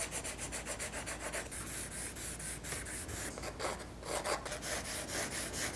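Graphite pencil and charcoal scratching across paper in quick back-and-forth hatching strokes, several a second, testing how a rough cold-press watercolor paper and other drawing papers take the marks.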